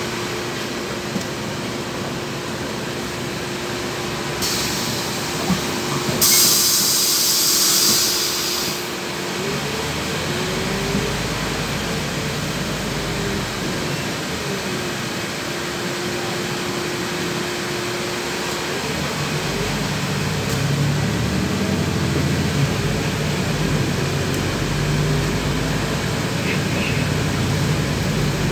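Interior running noise of a LiAZ 6213.21 articulated city bus on the move: a steady drone with a whine whose pitch rises, falls and rises again as the drivetrain speeds up and shifts. About five seconds in, a loud hiss of air lasts around four seconds.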